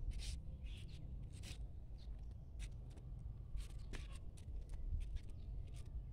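Scattered light rustles and clicks from seedlings and thin black plastic nursery pots being handled, over a low steady rumble.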